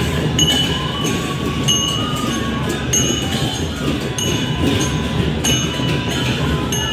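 Traditional Newari procession music: small metal cymbals ringing in short clashes every second or so over a dense, steady din of drumming.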